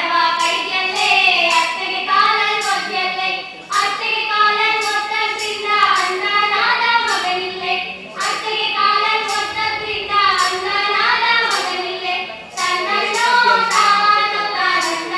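Voices singing a folk song, the melody going on without a break.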